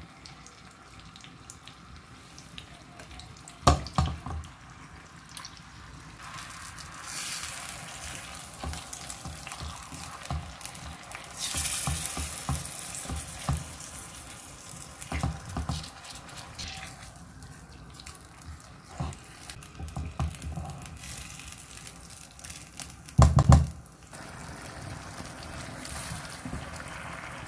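Marinated chicken pieces sizzling as they fry in hot butter and oil in a pan, the hiss swelling and easing. There are sharp knocks about four seconds in and a louder cluster of them near the end.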